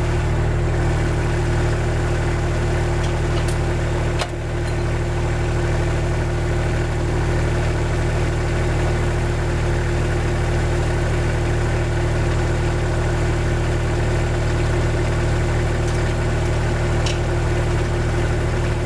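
2004 Kubota BX23D compact tractor's three-cylinder diesel engine running steadily at constant throttle while the tractor drives along, with a single sharp knock about four seconds in.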